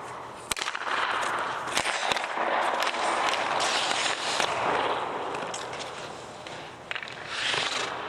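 Ice hockey skates scraping across the rink ice in long hisses, with a few sharp cracks of sticks striking pucks, the loudest about half a second in and two more near two seconds in.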